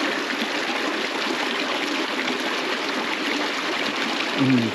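Small creek running over rocks: a steady rush of flowing water.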